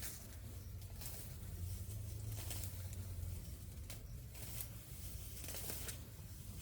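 Irregular rustling and crinkling, several short bursts, over a steady low rumble.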